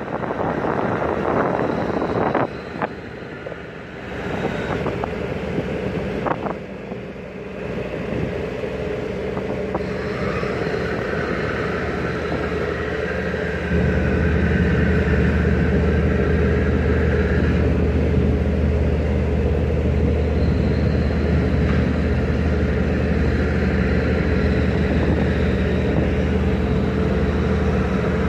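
Tugboat's diesel engine running, with rushing noise and a few knocks in the first half. About halfway through, a louder, steady deep engine hum comes in and holds.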